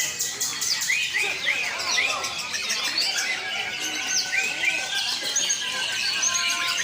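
Several green leafbirds (cucak ijo) singing over one another: a dense, unbroken chorus of overlapping chirps, quick rising whistled notes and high trills.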